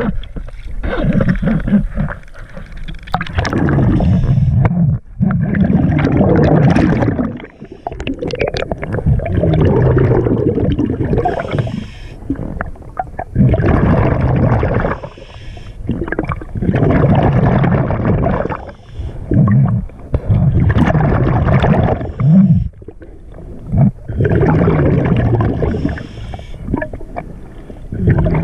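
Diver's underwater breathing regulator: exhaled bubbles gurgle and rumble in bursts of two to three seconds, repeating every three to four seconds with each breath.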